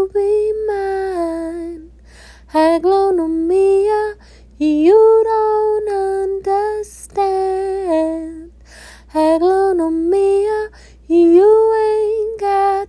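A woman singing unaccompanied: a slow melody in about six short phrases, each with held notes and sliding pitch, with brief pauses between them.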